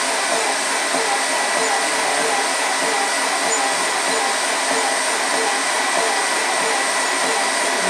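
GX CS4-1 water-cooled high-pressure PCP compressor running while it fills an air rifle: a steady, loud motor and fan noise with a regular pulse about three times a second and a thin steady high whine.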